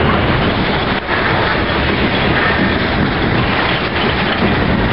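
Freight train of boxcars rolling past close by: steady, loud noise of steel wheels running on the rails.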